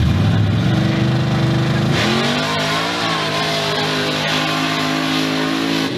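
Lifted square-body Chevrolet pickup's engine revving with a rising note, then about two seconds in the sound changes and a rush of noise joins as the truck pulls away at full throttle down the dirt drag strip, the engine note then holding fairly steady.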